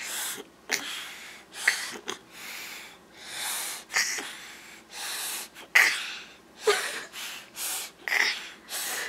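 A toddler snoring on request: a string of short, breathy snorts and rasping breaths, about one or two a second and unevenly spaced.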